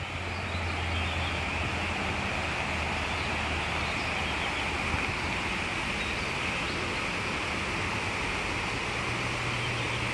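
Steady outdoor ambience: an even hiss with a constant high-pitched band and a low hum underneath, no single event standing out.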